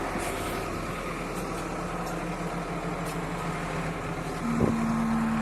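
An engine running steadily with a low hum. About four and a half seconds in there is a single knock, and a slightly higher steady hum joins for a second or so.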